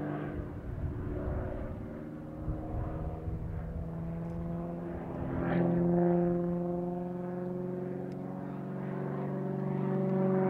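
Extra 300L aerobatic plane's six-cylinder Lycoming engine and propeller droning overhead through manoeuvres, the pitch shifting as it turns. The note goes weaker and rougher from about half a second in, then comes back louder about five and a half seconds in.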